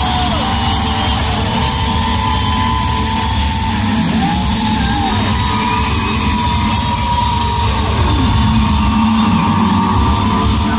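Live band music at a pop concert, loud and steady, with a rock-style backing from the full band.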